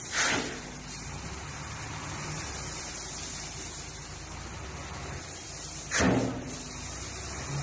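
Dump truck's diesel engine running steadily while a load of gravel slides off the raised bed, with two loud bangs about six seconds apart.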